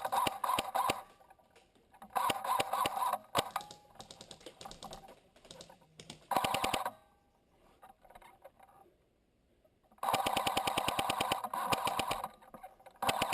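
Airsoft electric gun firing full-auto bursts, a rapid even clatter. There are five bursts, a short one near the middle and the longest, about two seconds, near the end.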